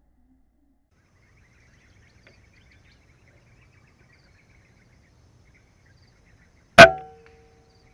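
A single loud air rifle shot about seven seconds in: a sharp crack followed by a brief metallic ring that fades within about a second. Before the shot there is only a faint outdoor background with faint scattered chirps.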